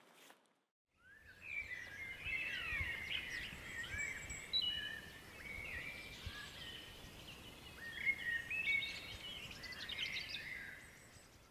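Several songbirds singing and chirping together in overlapping calls, starting about a second in and fading out near the end.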